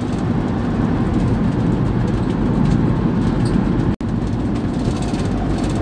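Motorhome's 2.8-litre engine and tyre noise heard from inside the cab while driving, a steady low rumble that breaks off for an instant about four seconds in.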